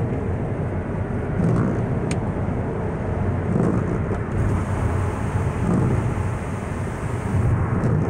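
Steady rumble of a car driving at highway speed, heard from inside the cabin: engine and tyre noise on a wet, slushy road.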